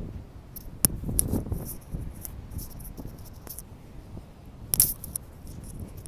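Wind buffeting an outdoor microphone in uneven gusts, with scattered clicks and crackles. A sharp click comes about a second in, and a louder crackle near the end.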